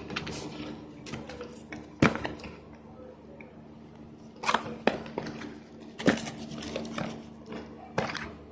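Cardboard packaging being handled: a boxed product taken in hand and turned over against its cardboard sleeve, giving a few sharp taps and scrapes, loudest about two seconds in and again about six seconds in. A steady low hum runs underneath.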